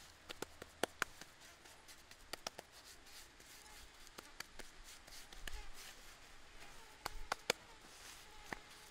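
Bare hands patting and smoothing wet mud, giving scattered soft slaps and taps. The sharpest come about a second in and again about seven seconds in.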